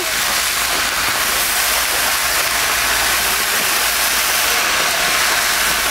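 Water squirted from a squeeze bottle into a hot cast iron skillet of diced sweet potatoes, sizzling steadily as it turns to steam.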